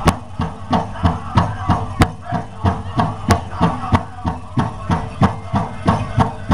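Powwow drum group beating a large drum in unison at a steady pace of about three beats a second for a men's chicken dance song, with voices singing over the beat; a few strokes land sharper and louder than the rest.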